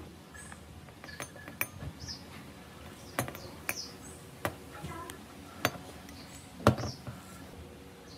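Metal parts and tools clinking and knocking against each other: about eight sharp knocks at irregular intervals, the loudest near the end.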